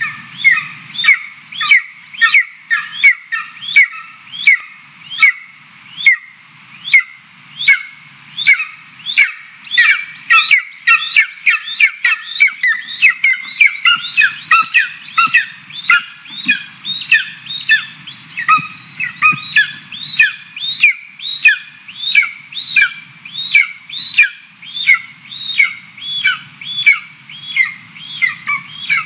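Golden eaglet giving an unbroken series of high, short, rising-and-falling begging calls, about two to three a second. The calls crowd together for a few seconds around the middle, as an adult arrives on the nest with food.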